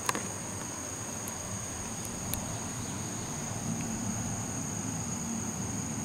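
Insects singing steadily in a continuous high-pitched drone, with a sharp click right at the start and a few faint ticks soon after.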